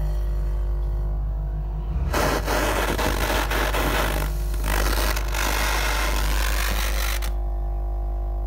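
LPG-fed jewellery soldering torch blowing its flame: a loud rushing hiss that comes in about two seconds in, dips briefly midway and cuts off suddenly about a second before the end. A steady low electrical hum sounds throughout.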